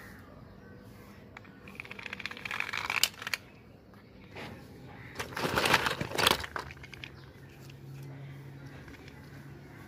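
Plastic toy cars and toys being handled: a quick rattle of clicks about two seconds in, then a louder plastic clatter and rustle a little past halfway as toys are rummaged in a tub.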